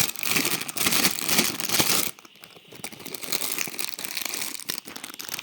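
Plastic biscuit bag crinkling as it is handled and pulled open: loud dense crinkling for about two seconds, then softer, scattered crinkles.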